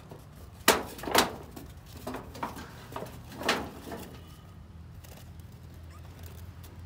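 Two sharp knocks about half a second apart, followed by several softer knocks and taps over the next few seconds.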